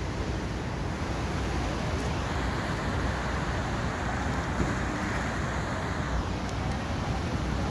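Distant air-show aircraft flying overhead: a steady rushing engine noise that swells about two seconds in and falls away about six seconds in, over a low rumble of wind and surf.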